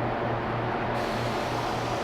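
Steady rush of a fan moving air, with a pulsing low hum; about a second in, the hiss of a lacquer spray gun starts as the trigger is pulled.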